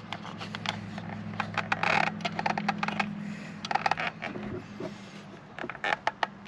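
Hands working the horn wire connector and steering-column plastic trim: a run of irregular small clicks and scrapes over a steady low hum.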